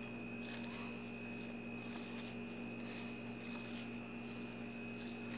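Gloved hand squeezing and mashing fried onions and crushed dried chilies on a plate: faint, irregular soft squishing and rustling of the plastic glove, over a steady electrical hum.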